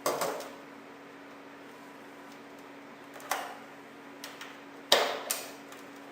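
Buttons being pressed while setting up an SVC-2010 voice alarm unit: a sharp click at the start, another about three seconds in, and a quick pair near the end, with fainter ticks between, over a steady low electrical hum.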